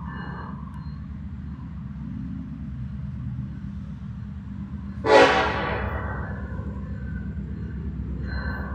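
Diesel freight locomotives rumbling as the train approaches. About five seconds in, the lead locomotive's air horn sounds one loud blast that is strongest for under a second and then trails off.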